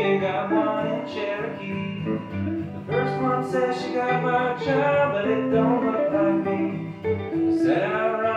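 Acoustic guitar strummed, with chords and changing bass notes underneath. It is an instrumental passage of a folk song, with no singing.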